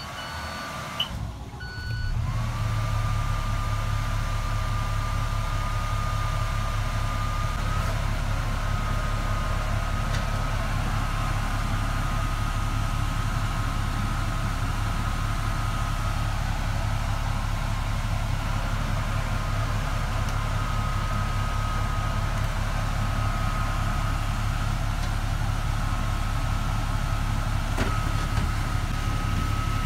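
A school bus's diesel engine starts about two seconds in and then idles steadily, with a steady high whine running above it.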